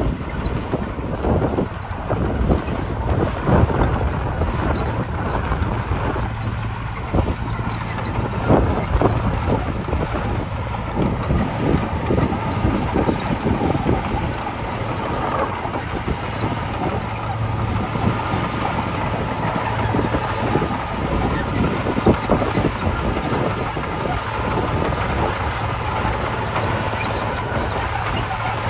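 Komatsu D41P crawler bulldozer's diesel engine running steadily under load, with many sharp clanks and crunches from the steel tracks and gravel being pushed.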